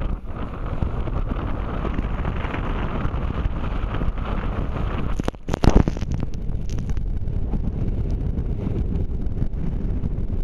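Strong wind buffeting the microphone in a steady low rumble, with a short, much louder crackling burst a little over five seconds in.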